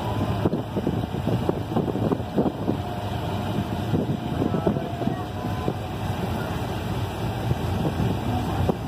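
Auto rickshaw (tuk-tuk) driving along, its engine running steadily with frequent knocks and rattles from the body, heard from the passenger seat with wind on the microphone.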